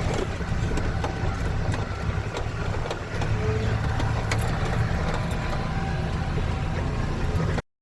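Dump truck's engine running heard from inside the cab while driving over rough ground, with frequent rattles and knocks as the truck shakes. It cuts off suddenly near the end.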